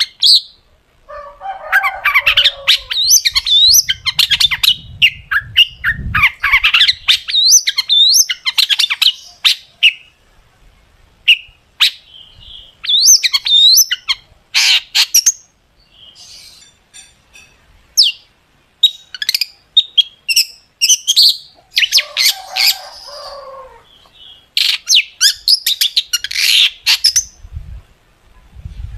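Long-tailed shrike (cendet) singing a rapid, varied song of sharp shot-like notes, rising whistled sweeps and harsh chatter, in bursts with short pauses between them. This is the 'gacor' song with sharp 'tembakan' fill used to provoke other cendets into singing.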